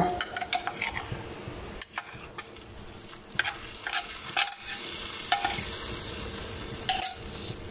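Hot ghee tempering of mustard seeds, pepper-cumin powder and curry leaves poured from a small pan into a pot of hot rasam, sizzling with a steady hiss from about halfway through. Scattered short clicks of metal utensils come before it.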